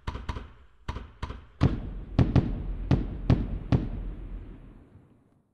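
Consumer fireworks going off: about ten sharp bangs in quick succession over some four seconds, the loudest in the middle, each followed by an echo that dies away about five seconds in.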